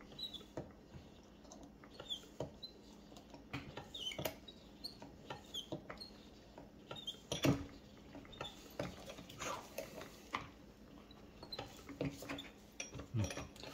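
Master cylinder being pumped by hand on the bench during bleeding: faint scattered clicks, taps and short high squeaks, with one louder knock about halfway through.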